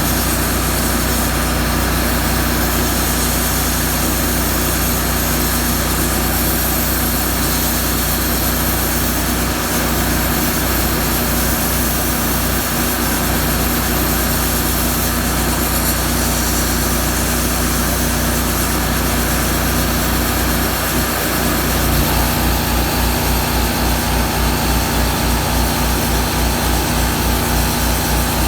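Miller Trailblazer 325 welder-generator engine running revved up under load from a plasma cutter, under a steady hiss. About 22 seconds in, a fast low pulsing and a higher steady tone join in.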